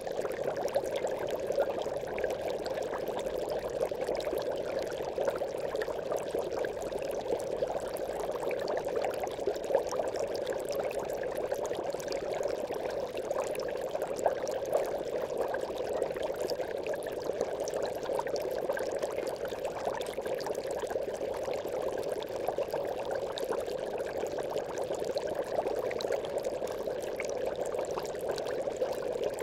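Aquarium bubbles streaming steadily through water: a continuous, even bubbling with many small pops.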